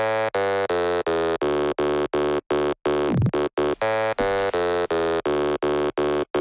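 Intro of an electronic music track: a buzzy synth chord stuttered in even pulses about three times a second, with a quick falling pitch sweep about three seconds in.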